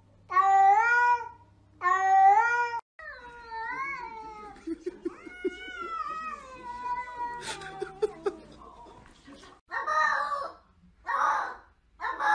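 Domestic cats meowing: two long drawn-out meows, then meowing that rises and falls in pitch over faint clicking. Near the end come short, rough calls about once a second.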